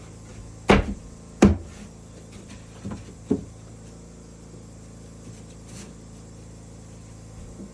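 Two loud, sharp knocks on wood about three quarters of a second apart, then two lighter knocks about two seconds later, over a steady low hum.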